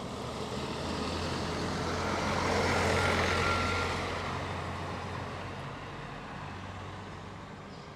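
A motor vehicle driving past, its engine and tyre noise swelling to a peak about three seconds in and then slowly fading away.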